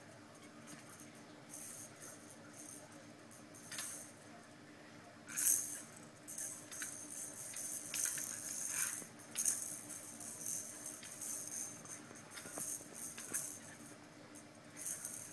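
Panaque cochliodon (blue-eyed pleco) rasping at driftwood with its mouth: irregular, high-pitched scratching and rattling bursts, several clustered through the middle, over a faint steady hum.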